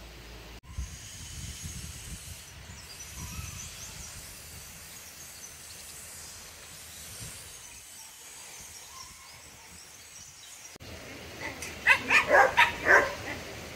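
A dog barking about six times in quick succession near the end, after several seconds of faint background hiss.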